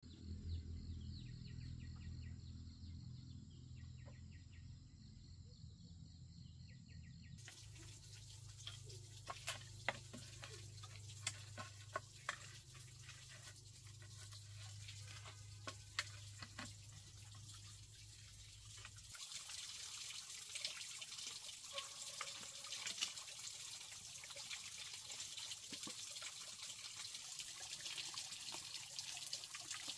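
A low steady hum at first, then scattered knocks and clicks of sticks being handled at a fire pit; about two-thirds of the way in, a steady splashing of water pouring from a bamboo pipe into a plastic basin takes over.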